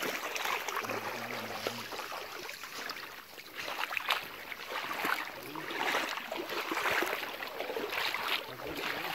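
Steady rush of a shallow river's flowing water, with intermittent rustling as a wet cast net is shaken and handled.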